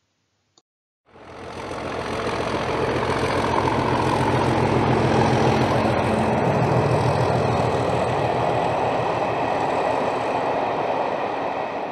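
Diesel locomotive engine running steadily with a low, pulsing throb, fading in about a second in.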